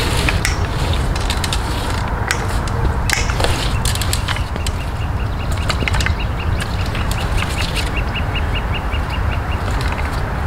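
A long extension pole knocks and clicks against rough tree bark as it is worked up the trunk, over a steady low rumble. About halfway through, a bird calls a fast run of short, even notes, about four or five a second, for several seconds.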